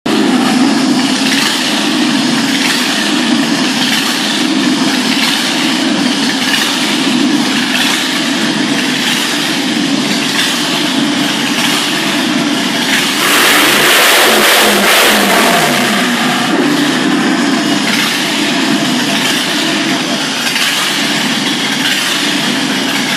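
Holden V8 engine in a ride-on lawn mower idling loudly. About halfway through it is revved up for a couple of seconds, then drops back to idle.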